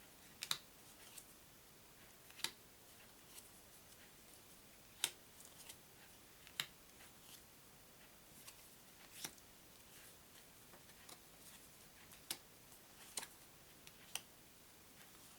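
Playing cards handled one at a time: sharp light clicks every second or two, each as a card is flicked or set down, over a quiet room.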